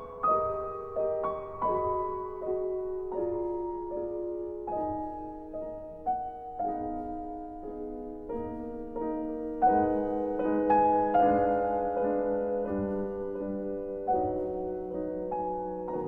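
Slow, gentle background piano music: single sustained notes and soft chords, growing fuller from about ten seconds in.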